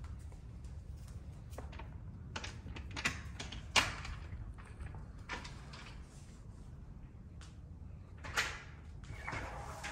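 A few scattered knocks and clicks, the loudest about four seconds in and another near the end, over a steady low hum.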